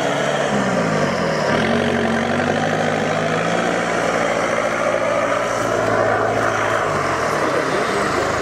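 Off-road 4x4's engine running under load as the vehicle crawls through snowy mud. The revs fall about half a second in, hold steady, then rise and fall again near the end.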